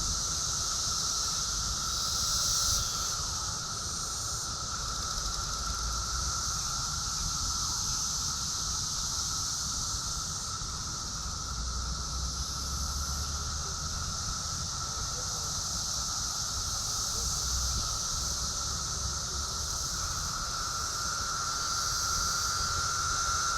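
Chorus of cicadas singing continuously: a steady high-pitched buzz layered over a steadier, lower-pitched whine, with no breaks.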